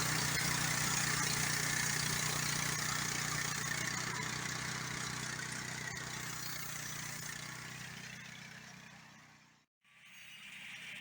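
The MechMaxx portable sawmill's 14–15 hp gasoline engine running steadily. The sound fades out near the end, drops to a moment of silence, then fades back in.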